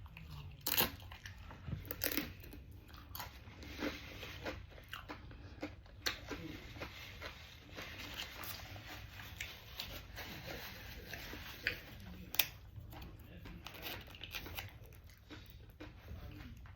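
Close-miked eating: irregular crunchy bites and chewing, with sharp crunches now and then, the loudest about a second in and about twelve seconds in.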